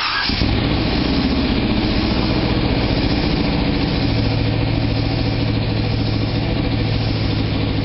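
Freshly built turbocharged small-block Chevrolet V8 firing up on its first startup and then running steadily.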